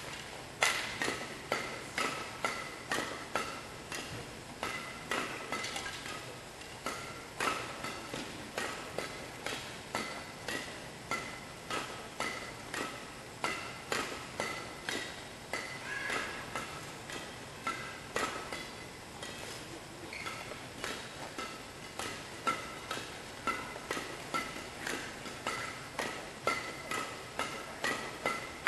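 A run of sharp knocks, roughly two a second, mixed with short high squeaks.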